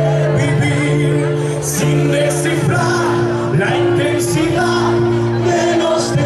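Live symphonic rock band playing, a singer's voice over long held chords, heard through the PA from within the crowd.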